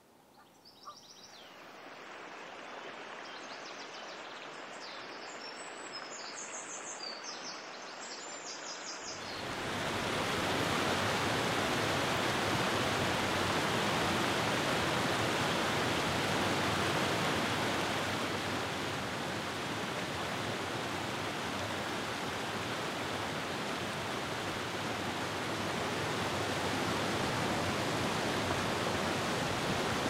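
Running water building up over the first few seconds, with high chirps above it. About nine seconds in it gives way to the steady, loud rush of a waterfall crashing down over rock.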